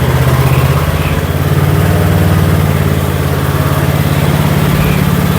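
Murray riding lawn mower's engine running steadily under load as it tows an engine-less car on a tow strap.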